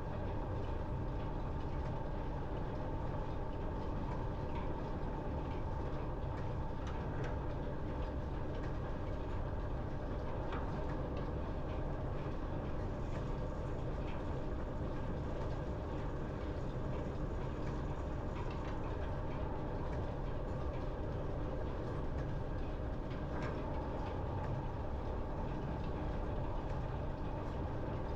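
Overhead line shafting running, with flat belts turning over its fast and loose pulleys: a steady mechanical rumble with an occasional faint tick.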